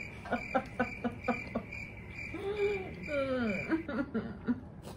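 A person laughing in short, even ha-ha pulses, about four a second, then a few wavering, gliding laughs, over a steady high cricket chirping played as the "crickets" gag for a joke that fell flat.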